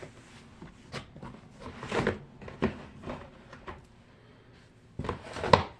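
Fidget toys being handled and set down: scattered knocks and clatters, a few around the middle and the loudest cluster near the end.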